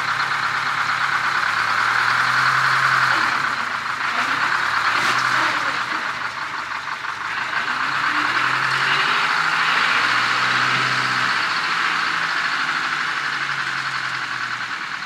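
International Transtar's Detroit Diesel two-stroke engine running under light throttle, its pitch swelling and easing off several times as the truck reverses down a low-loader trailer ramp.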